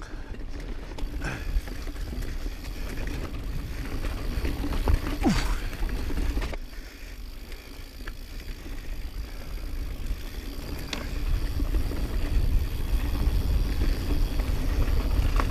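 Mountain bike rolling down a dirt singletrack: wind rumbling on the camera microphone over tyre noise on dirt, with scattered knocks and rattles from the bike over bumps and a short rising squeak about five seconds in.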